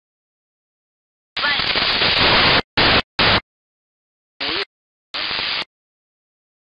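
FM radio receiver static on a train-radio channel, cut in and out by the squelch: five bursts of hiss with dead silence between. The first is about a second long and starts a little over a second in; the others are shorter.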